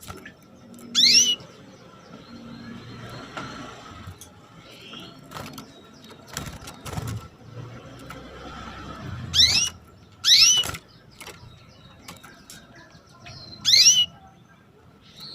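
Female canary giving short, rising 'cuit' calls, four in all: one about a second in, two close together in the middle and one near the end. This is the call a hen canary uses to draw a male into song.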